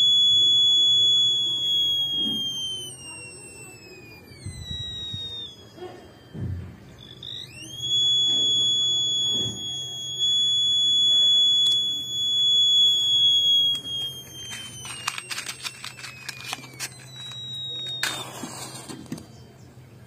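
Small buzzer of a homemade BC547 transistor heat-sensing fire alarm sounding a steady high beep. Twice its pitch slides down and fades as the flame-heated transistor cools and conduction drops. In between, it jumps back to full pitch when a burning match is held to the sensor again. Near the end come crackling clicks and a short hiss.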